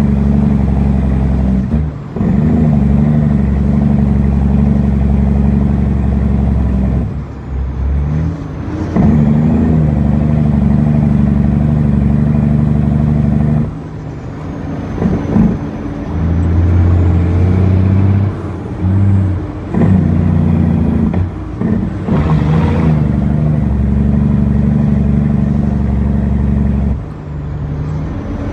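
Cat C15 inline-six diesel of an International 9300 dump truck running under load, heard inside the cab, with the engine sound dropping away briefly several times and coming back at a changed pitch, as with gear changes on an 18-speed transmission. A short hissing burst about two-thirds of the way through.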